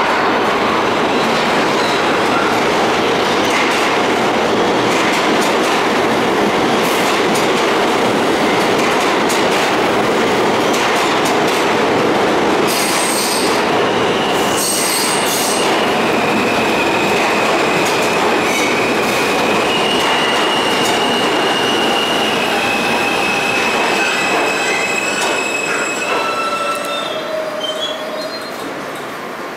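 A New York City subway train running through the station on another track: loud rumble and clatter of steel wheels on rail. About halfway through, high, slightly wavering wheel squeal joins in, and the noise fades in the last few seconds.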